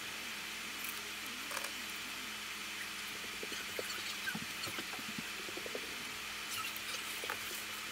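Soldering iron working on a small circuit board: scattered faint crackles and ticks over a steady hiss and low hum.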